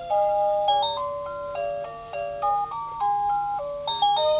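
Quartz cuckoo clock playing its hourly melody: a simple tune of clean electronic notes with a second voice in harmony.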